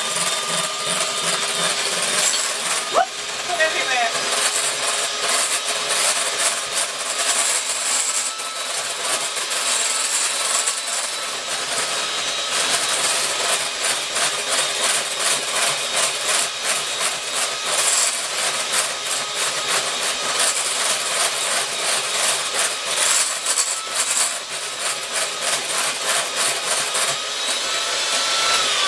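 Electric hand mixer running steadily, its beaters churning over-thickened cream in a glass bowl as it breaks into butter, with a fast continuous clatter.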